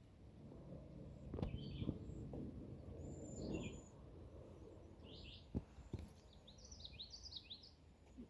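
Small birds chirping: short high calls here and there, then a quick run of falling notes near the end. Low outdoor rumble underneath with a few soft knocks.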